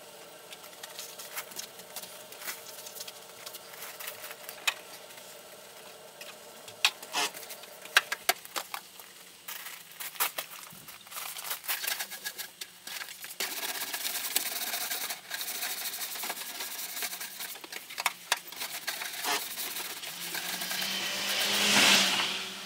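Scattered knocks and clicks, then from a little past halfway a steady spraying hiss that swells loudly just before the end.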